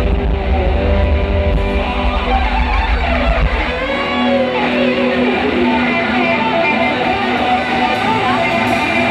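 Live rock band, led by an electric guitar playing a solo of sustained and bending notes over keyboard. The heavy deep bass drops out about four seconds in.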